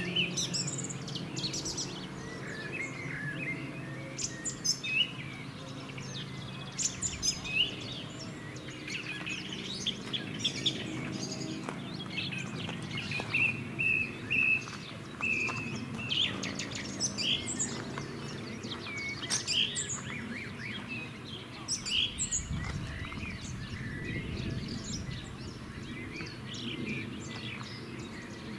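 Songbirds chirping and singing in short scattered calls, with a run of repeated notes about halfway through. A faint steady low hum runs underneath, and a brief low rumble comes about three-quarters of the way through.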